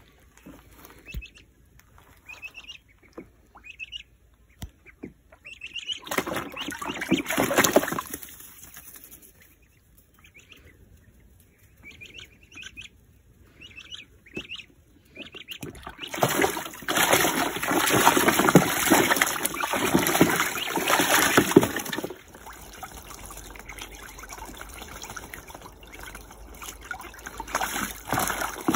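Australian wood duck ducklings giving short high peeps and splashing in a shallow plastic paddling pool as they swim and bathe. There is a short loud bout of splashing about six seconds in and a longer one from about sixteen seconds, with lighter water sounds after.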